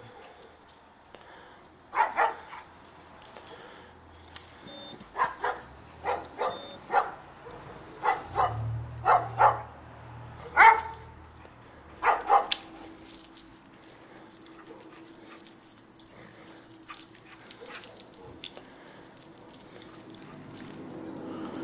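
Dog barking through a chain-link fence: about a dozen short, sharp barks in quick groups, then quiet after about twelve seconds.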